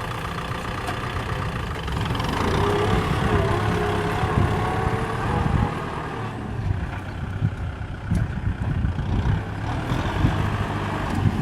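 Kubota M6040 SU tractor's diesel engine running steadily with a deep rumble, a wavering higher tone riding over it for a few seconds about two seconds in.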